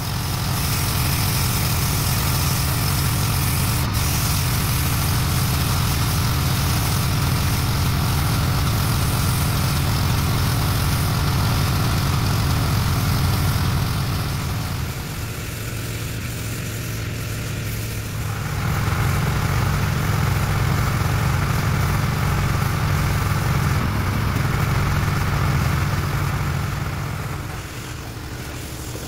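Pressure washer's engine running steadily under load, with the hiss of the water spray. It eases for about three seconds about halfway through, then picks up again and drops near the end.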